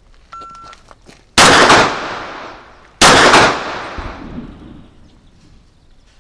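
A shot timer gives one short beep, then two pistol shots follow about a second and a half apart, each trailing off in a long echo.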